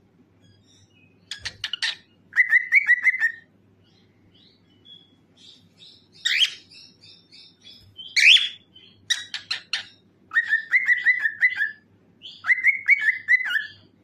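Cockatiel singing: phrases of rapid chattering clicks that run into a warbling, trilled whistle, heard three times, with two loud sharp calls in the middle.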